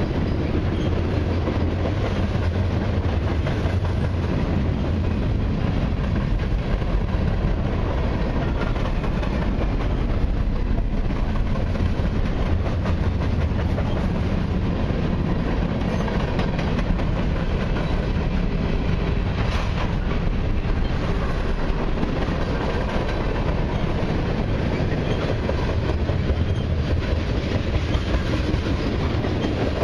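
Freight train cars rolling past at close range, first covered hoppers and then tank cars: a steady rumble and clatter of steel wheels on the rails.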